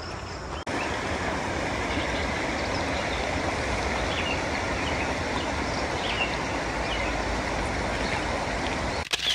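Steady rushing of a creek's rapids, with wind rumbling on the microphone and a few short chirps over it. A brief knock comes just before the sound cuts off at the end.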